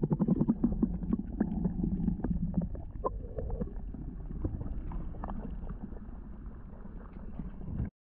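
Underwater sound from a camera submerged in a river: muffled water with many quick clicks and knocks, thickest at the start, and a low hum for the first couple of seconds. It breaks off suddenly just before the end.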